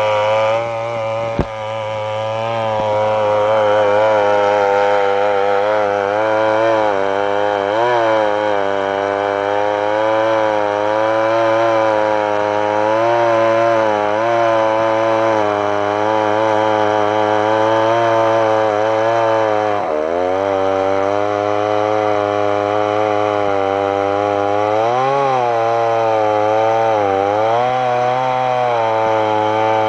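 Large two-stroke chainsaw fitted in a chainsaw mill frame, running at full throttle as it rips lengthwise through a log, its pitch sagging briefly several times as the cut loads the engine. A single sharp click comes about a second and a half in.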